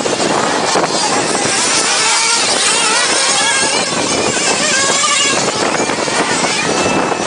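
Remote-control off-road car's electric motor whining, its pitch wavering up and down with the throttle, over a steady rough noise.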